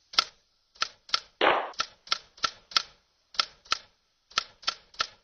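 Typewriter keystroke sound effect: about a dozen sharp key clicks at an uneven two to three a second, with one longer rasping stroke about one and a half seconds in.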